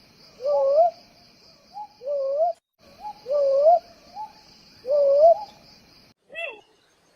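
An owl hooting: five paired calls, each a short note followed by a longer hoot rising in pitch, about every second and a half, over a steady pulsing trill of crickets. Near the end comes a brief, sharper call that sweeps up and down.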